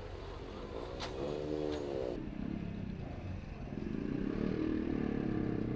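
Motorcycles riding past one after another through a waterlogged road, their engines swelling as each goes by: one about a second in, another building from midway to the end, over a low steady engine hum.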